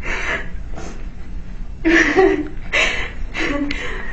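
A woman crying with emotion: breathy sobs and gasps, several in a row, some with a brief voiced catch.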